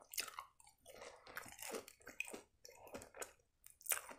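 Close-miked chewing of a bite of fried fish pastry triangle: faint, irregular mouth clicks.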